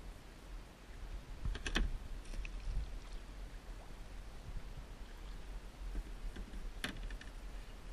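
Two short clusters of sharp clicks, about a second and a half in and again near the end, over a steady low rumble.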